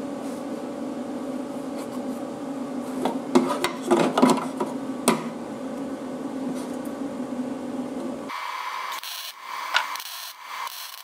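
A steady hum with a few sharp metal knocks, then about eight seconds in a wire-feed (MIG) welder strikes an arc and crackles as it tack welds a steel patch onto a rusted mower deck.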